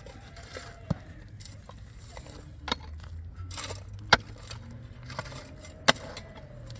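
Four sharp knocks spaced one to two seconds apart, over a low background hum.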